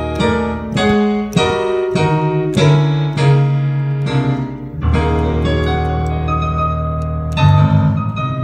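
Keyboard playing slow chords, each struck and left to ring over held bass notes, with lighter high notes in a sparser stretch in the middle.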